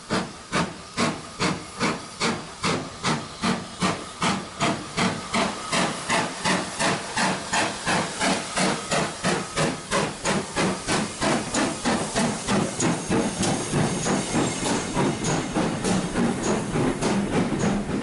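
Steam locomotive chuffing as it runs in along the platform, a regular beat of about three exhaust puffs a second with steam hissing. The beats come faster and run together in the second half as the engine and coaches draw level and pass.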